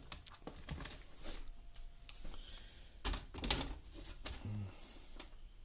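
Faint clicks and knocks of a laptop being handled on a plastic docking station as it is seated and adjusted. Two louder knocks come about three seconds in, half a second apart.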